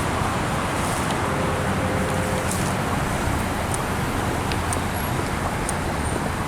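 Steady roadway traffic noise from nearby vehicles.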